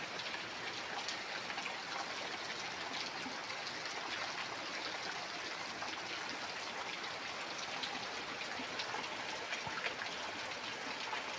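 Heavy rain falling steadily, with many sharp hits of single drops close by.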